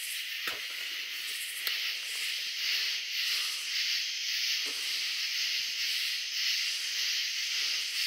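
Night-time insect chorus: a steady, high-pitched buzzing shimmer with faint pulsing, and a few soft knocks, the first about half a second in.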